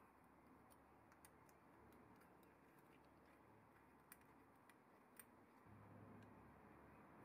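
Near silence broken by a few faint, sharp metallic ticks as a hex key works the socket screws in a steel turret body. A faint low hum comes in near the end.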